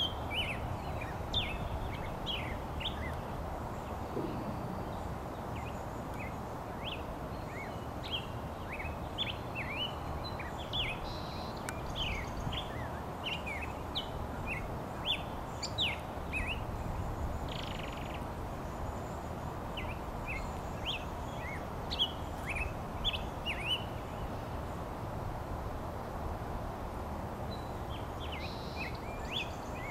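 Series of short, high, sharp bird chirps repeated again and again, with a pause a few seconds before the end, over steady low background noise.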